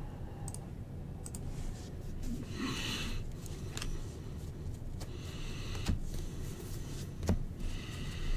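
Trading cards being slid and flipped through by hand, a soft swish of card stock every couple of seconds, with two light knocks near the end.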